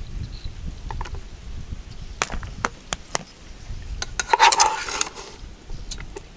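Kitchen utensils knocking and clattering during vegetable prep: scattered sharp knocks, with a denser ringing clatter of about a second, roughly four seconds in.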